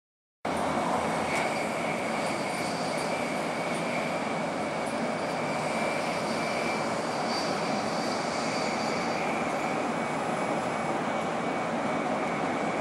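Steady running noise of a Shinkansen bullet train at speed, heard from inside the cabin: an even rumble and hiss with a faint thin whine. It starts suddenly about half a second in.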